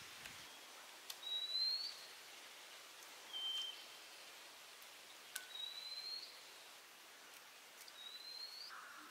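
A bird repeating a short rising whistled call four times, about two seconds apart, over a faint background hiss, with a couple of soft clicks.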